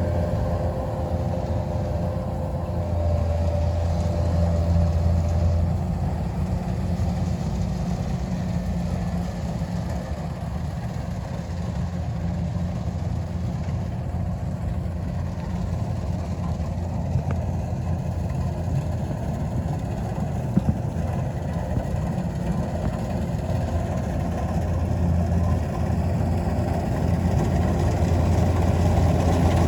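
Kubota DC-93 combine harvester's diesel engine running steadily, a low drone that grows slightly louder near the end.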